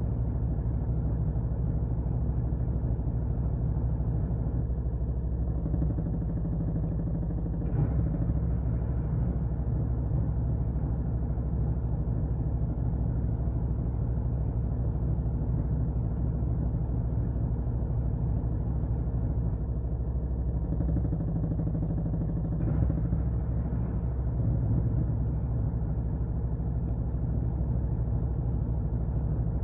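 Washing machine running with a steady low hum and rumble. A brief knock sounds about eight seconds in and again near twenty-three seconds.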